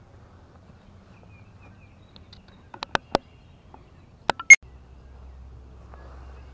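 Tin cans knocking and being set down close by: three sharp knocks about three seconds in, then three more a second and a half later, the last a loud metallic clink with a brief ring.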